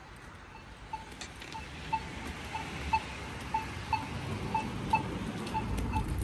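Short electronic beeps repeating evenly about twice a second, like a pedestrian crossing signal's locator tone, over low traffic rumble that grows toward the end, with a few sharp clicks.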